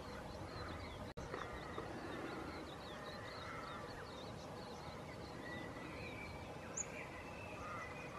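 Birds calling over a steady outdoor background: a rapid string of short high chirps, then a few lower drawn-out whistled calls. The sound cuts out for an instant about a second in.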